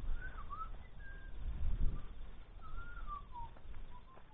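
A bird calling in a series of short whistled notes that rise and fall in pitch.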